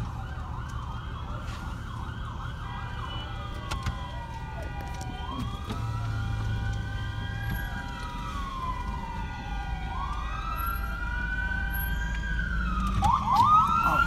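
Emergency vehicle sirens at a fire scene. A fast yelp at first turns into a slow wail that rises and falls about every four to five seconds. A second siren's quick sweeps join near the end, over a low steady rumble of vehicles.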